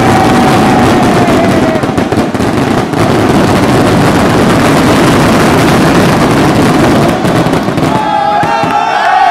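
Dense, rapid barrage of fireworks exploding close by: a continuous crackle of bangs, very loud. A steady tone sounds over it for the first two seconds, and the bangs die away near the end.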